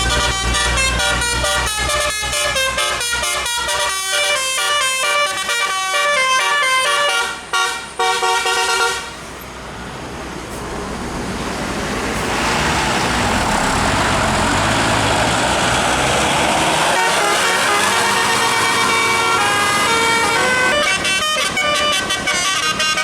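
Bus telolet musical horn playing a fast stepping tune of several pitched notes, which stops about nine seconds in. Then a rushing noise swells up and holds, the hiss of a bus passing on a wet road, and the horn tune starts again near the end.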